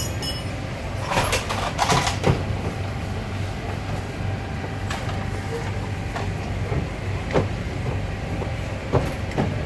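Metal clanks and knocks of mechanics' hand tools working under a rally car, a cluster of them a second or two in and single knocks later, over a steady low hum.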